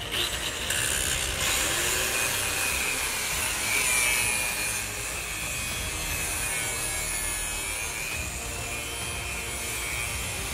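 Electric angle grinder cutting into the steel door edge of a small safe near the hinge. It runs as a steady, harsh high whine whose pitch sags and recovers as the disc bites into the metal, loudest about four seconds in.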